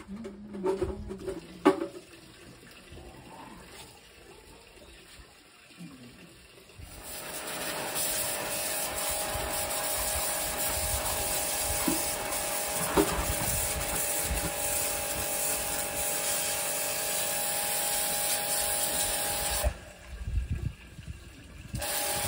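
Water running hard from a tap, a steady rushing hiss that starts about seven seconds in, stops briefly near the end and then starts again. A few knocks come before it.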